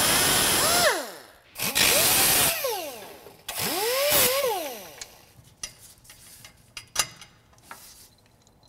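Small handheld power tool running at full speed on a steel shift-linkage rod, cutting it to length at the marked spot. It stops about a second in and winds down, then gives two short bursts, each rising in pitch and then winding down. Scattered light metallic clicks and taps follow.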